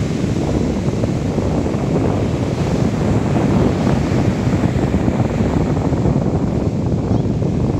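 Ocean surf breaking and washing up a sandy beach, with wind buffeting the microphone in a loud, low, fluttering rumble.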